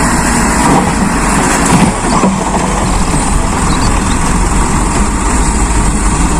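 Dump truck engine running while its raised bed tips out a load of sand. It is loud and steady, with an even rushing noise over the low engine sound.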